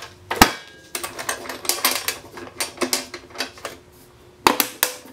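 Metal tool case being shut. The lid closes with a sharp clack about half a second in, followed by a run of rattling clicks as the case is handled and two sharp clicks near the end.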